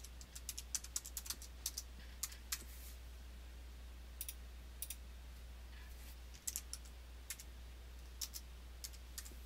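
Typing on a computer keyboard: a quick run of keystrokes for about the first three seconds, then scattered single keystrokes, over a faint steady low hum.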